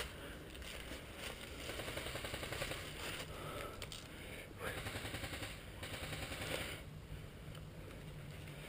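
Full-auto airsoft electric guns firing, a rapid rattle of shots in two bursts lasting a couple of seconds each.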